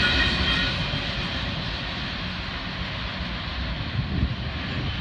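The tail end of an FEC intermodal freight train rolling away over the crossing. Its rumble fades over the first couple of seconds, and a high steady tone dies out within the first second.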